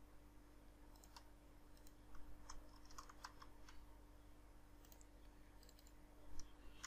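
Faint computer keyboard keystrokes and mouse clicks, scattered and irregular, over a low steady hum.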